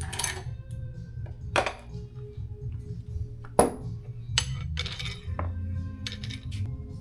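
Background music, with several sharp metallic clinks of tools and bicycle cockpit parts being handled. The loudest clink comes about three and a half seconds in.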